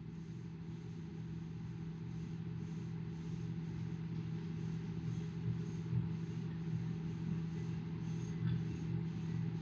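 Steady low hum and hiss of an old tape recording of a room, with a faint regular pulsing in the hiss.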